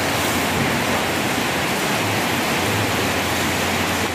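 Heavy rain pouring down, a steady loud hiss.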